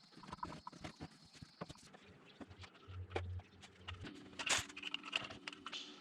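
Faint, irregular clicks and light knocks of hand tools and metal parts being handled while working on a Willys Jeep, with a brief low hum about three seconds in.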